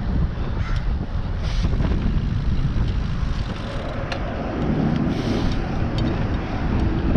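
Wind rushing over the microphone of a chest-mounted camera on a moving road bike, mixed with the noise of passing street traffic.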